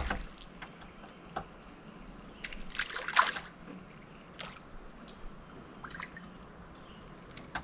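A small hooked bream splashing at the water's surface as it is reeled in to the boat, in one short flurry about two and a half seconds in, with a few faint clicks from handling the rod and reel.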